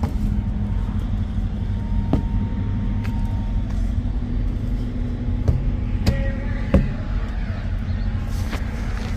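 Diesel truck engine idling, a steady low rumble, with a few sharp clicks or knocks over it, the loudest about two-thirds of the way through.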